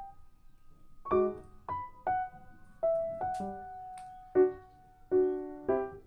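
Background piano music: a slow, gentle line of single notes and soft chords, each struck and left to fade.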